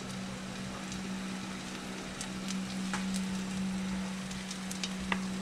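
Oil faintly sizzling in an aluminium wok, just before ground beef is added, over a steady low hum. A few light ticks are heard.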